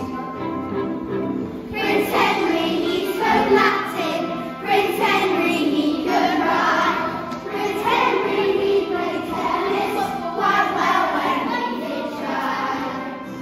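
A class of young children singing a song together in chorus, with music accompanying them.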